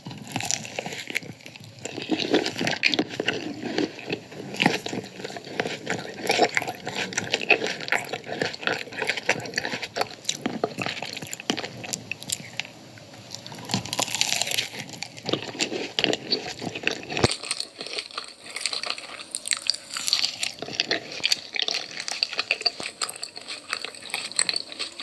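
Close-miked chewing and biting of crunchy food: a dense, irregular run of crisp crunches and wet mouth sounds.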